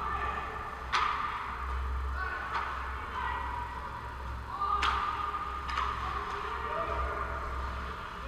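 Ice hockey play on the rink: skate blades scraping on the ice, with sharp clacks of sticks and puck about a second in and again near five seconds, over a steady low rink hum.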